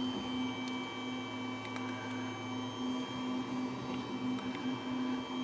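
Steady machine hum: a low tone that pulses regularly, under a few thin, steady high-pitched whines.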